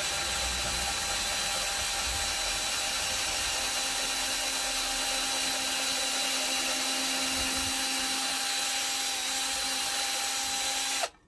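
Cordless drill running steadily at one speed as it bores a hole into a wooden stool top, with a steady motor whine. It cuts off suddenly near the end.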